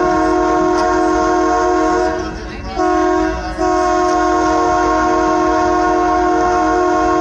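Skunk Train locomotive horn blowing a chord. A long blast ends about two seconds in, a short blast follows, then another long blast starts. The pattern fits the close of the long-long-short-long grade-crossing signal.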